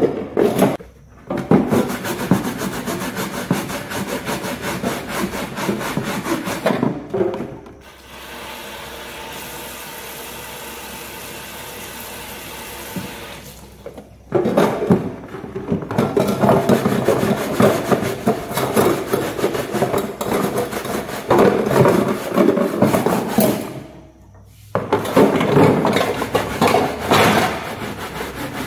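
A stiff brush scrubbing a woven plastic basket at a kitchen sink: rapid scratchy back-and-forth strokes, stopping briefly a few times. For several seconds in the middle the scrubbing gives way to a steady rush of tap water running.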